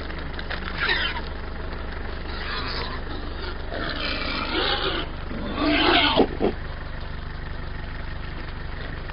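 Wild boars giving several short, harsh, noisy calls, the loudest about six seconds in, over the steady hum of a vehicle engine idling.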